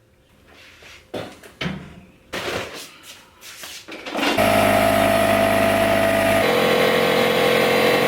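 A few handling knocks and clatters, then about halfway through a loud, steady motorised machine starts running, its main tone dropping once about two seconds later.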